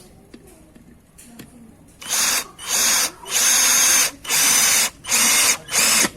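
Cordless drill with a brushed 775 motor, sold as a Dewalt DCD796, in screwdriving mode on a roofing screw, run in about six short trigger bursts starting about two seconds in, each with a high motor whine.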